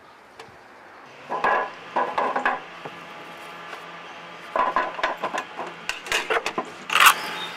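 Hard objects being handled, clattering and knocking in three bunches of short rattles, the loudest near the end, over a faint steady low hum.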